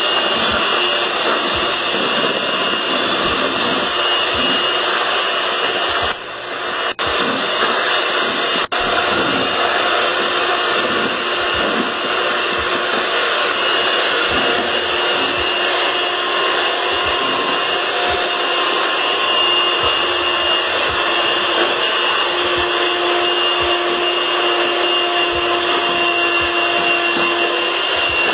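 Electric hand mixer running steadily, its beaters whisking cake batter in a bowl, with a brief dip in level about six seconds in.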